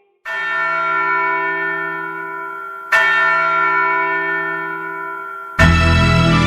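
A large bell struck twice, about two and a half seconds apart, each stroke ringing on and slowly fading. Near the end, loud music with a heavy bass comes in over it.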